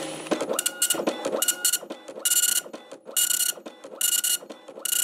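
Dot-matrix printer printing: the print head buzzes across the page in short passes a little under once a second, with clattering from the carriage and paper feed between passes.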